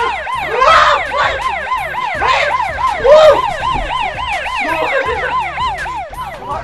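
Police siren in a fast yelp, its pitch rising and falling about three times a second, over a low repeating music beat.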